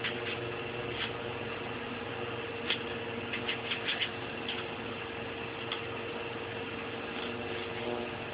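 A chef's knife clicking and scraping lightly against an onion as it is peeled by hand, a few scattered small taps over a steady electrical hum with a faint constant whine.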